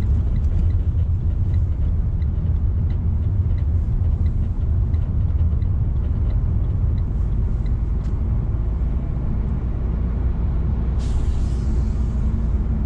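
Steady low rumble of engine and tyre noise heard inside the cabin of a moving Renault car, with faint small ticks, and a short hiss about eleven seconds in.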